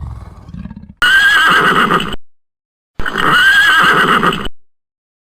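A loud, high animal call with a wavering pitch, played twice as the same clip about two seconds apart. Each call lasts about a second and cuts off abruptly. A low rumbling animal sound is heard in the first second.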